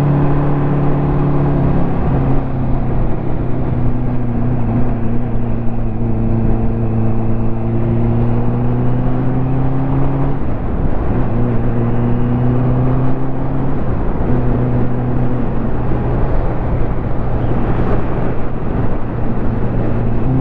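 Ducati motorcycle engine running under way, with wind and road noise. The engine note drops about two seconds in and breaks off briefly twice later, around ten and fourteen seconds in.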